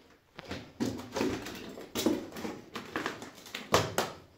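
A person's footsteps, irregular steps roughly a second apart.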